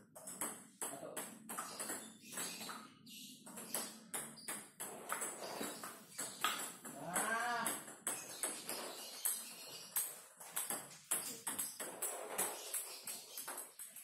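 Table tennis rally: a plastic ball clicking in quick succession off rubber paddles and the table top, with a short pitched call rising and falling about seven seconds in.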